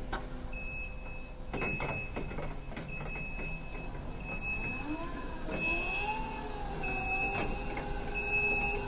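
Jungheinrich electric reach truck sounding its high warning beep about once a second as it moves. From about halfway an electric motor whine rises in pitch, holds, then falls near the end.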